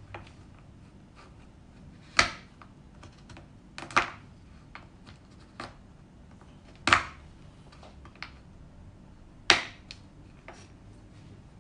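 Chef's knife chopping a block of dark chocolate on a wooden cutting board: four loud chops a few seconds apart, with lighter knife taps and clicks between them.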